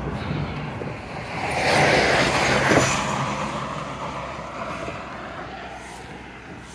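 Road traffic on the highway right beside the walkway: a vehicle swells up about a second and a half in, is loudest around two to three seconds, then fades away over a steady low rumble of traffic.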